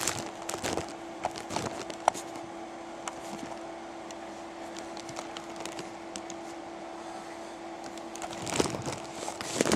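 Handling noise from a camera being positioned and repositioned by hand: scattered small clicks and knocks over a steady hum, with louder fumbling near the end.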